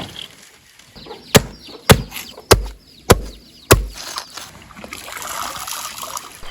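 Five heavy thudding strikes about half a second apart, followed by a soft, even rustling noise near the end.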